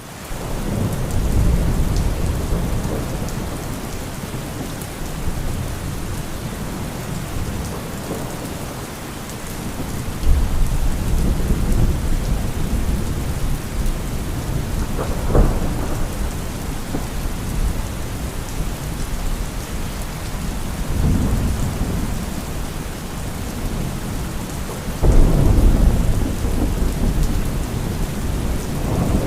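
Steady rain with rolling thunder: several deep thunder rumbles swell and fade over the hiss of the rain, with a sharper thunderclap about halfway through and a heavy rumble near the end.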